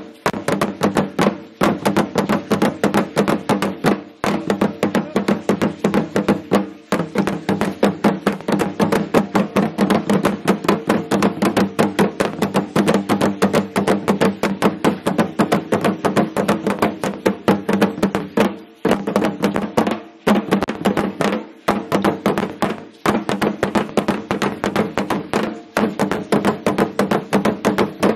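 Drumming for Aztec ceremonial dance: a fast, even run of drum strikes that keep a steady pitch, pausing briefly several times.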